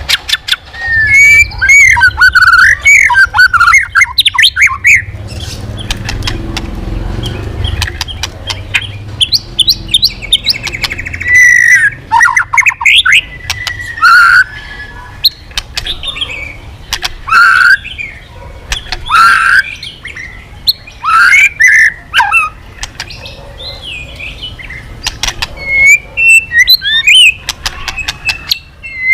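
White-rumped shama (murai batu) singing loudly: varied phrases of gliding whistles and rapid notes mixed with sharp clicks, with short pauses between phrases.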